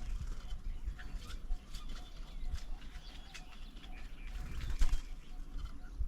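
Birds at a feeding table: scattered short chirps and calls, with a single louder thump a little before five seconds in.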